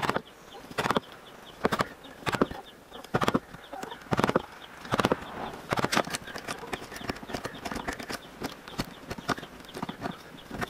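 Wood chisel cutting a square recess around a drilled hole in a clamped block of wood: a series of sharp knocks, about one a second through the first six seconds, then lighter, quicker clicks and scraping.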